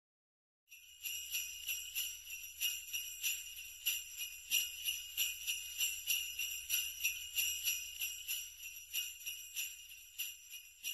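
Jingle bells shaken in a steady rhythm, about three shakes a second, coming in after a moment of silence and slowly fading toward the end.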